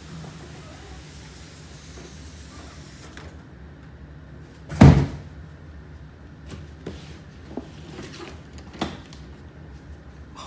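Cardboard boxes being handled: one heavy thump about five seconds in, then a few lighter knocks and rustles.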